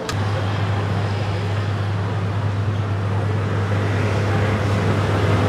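A steady low drone, like a motor or engine running, over an even wash of street noise.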